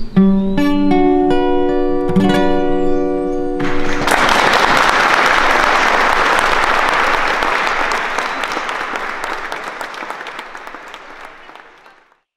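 Acoustic guitar plays a closing run of plucked notes and chords, then applause breaks out about four seconds in and fades away near the end.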